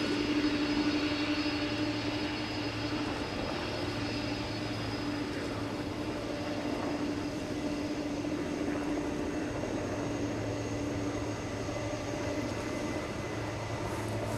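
Boeing 747-400 freighter's jet engines running at taxi power as it rolls past: a steady rush with a constant whine and no change in thrust.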